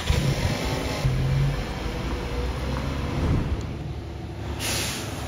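Audi Q3 SUV running after its engine has just been started, a steady low engine and road rumble, with a short hiss near the end.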